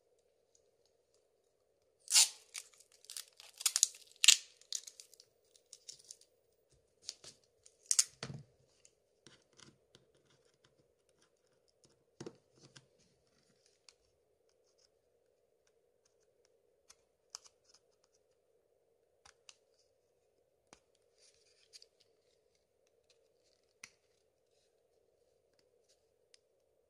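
Plastic clicks and scrapes from a Samsung Galaxy S3 phone being handled and worked on with a small tool. A dense run of sharp clicks about two to five seconds in, another burst around eight seconds, then only scattered light clicks. A faint steady hum runs underneath.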